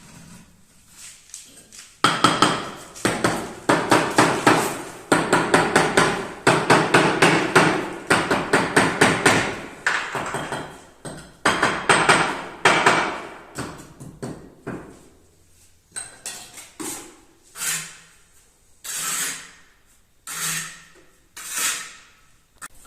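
Hammering: fast runs of blows, several a second, from about two seconds in, thinning out after the middle into single strikes about a second apart near the end.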